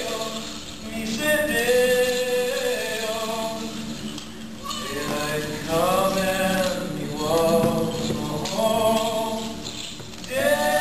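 A song playing for the dance: singing voices holding long notes in slow phrases, over a steady low accompaniment.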